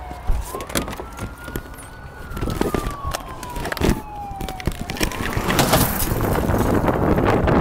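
Police siren on a slow wail, gliding up over about two seconds, down over nearly three, then up again, with knocks and clatter close to the body-worn camera. A loud rushing noise builds from about five seconds in.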